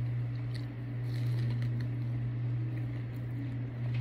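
A person biting and chewing kernels off an ear of roasted sweet corn, with faint scattered crunching over a steady low hum.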